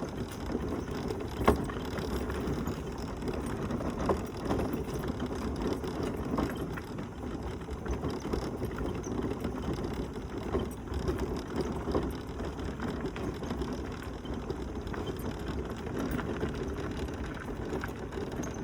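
Mobility scooter riding over a rough, bumpy path, its frame rattling steadily, with scattered sharp knocks as it goes over stones.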